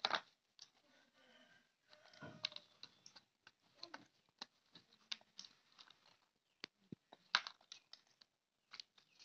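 A kitten's claws and paws scratching and tapping on a plastic toy bathtub as it plays and clambers about: faint, irregular light clicks and scrapes.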